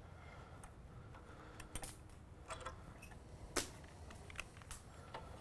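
A few short, sharp metallic clicks and clinks from locking pliers being handled on a wooden stick held with steel hose clamps, the loudest about three and a half seconds in.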